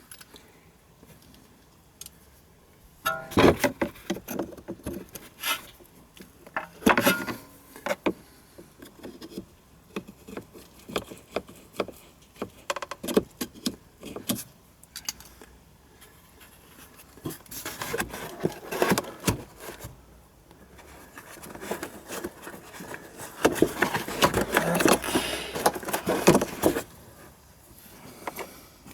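Hand work on a car's windscreen washer pump: scattered clicks, knocks and rattles of plastic parts and tools as its electrical connector is unplugged and the pump is worked loose, busiest in the second half.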